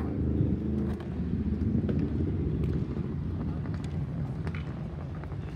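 Low, steady rumble of a motor vehicle engine, with scattered sharp clicks over it.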